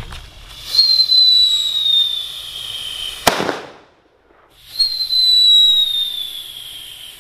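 Two whistling firecrackers (mercon tandur) go off one after the other. Each gives a loud hissing whistle that slides slowly down in pitch for about two and a half seconds, then ends in a sharp bang. The first bang comes about three seconds in and the second right at the end.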